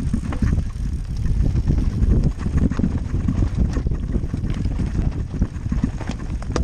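Wind rumbling on a helmet camera's microphone as a mountain bike descends a rough dirt singletrack, with the frequent knocks and rattles of the bike over bumps.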